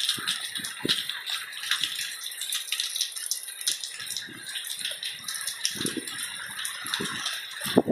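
Heavy rain falling: a dense, steady patter of drops, with irregular soft knocks scattered through it.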